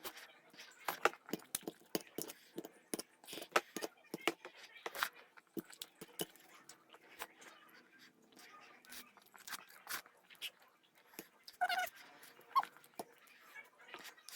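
A person eating instant ramen noodles close to the microphone: chewing and slurping, with many short wet clicks and mouth smacks throughout. About twelve seconds in there is a brief high-pitched vocal sound.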